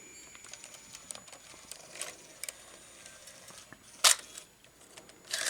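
Sony CCD-TRV99 Hi8 camcorder ejecting its tape: faint mechanical ticking, then one sharp click about four seconds in as the cassette compartment opens, and a short rattle of plastic handling near the end.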